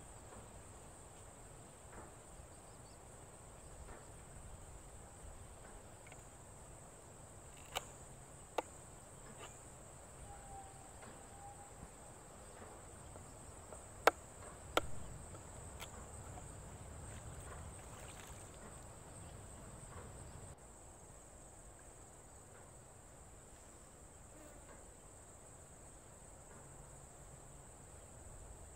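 Steady high-pitched insect drone, with four sharp clicks of a knife against a wooden cutting board as a fish is cleaned: two about eight seconds in and two about halfway through, the first of that pair the loudest.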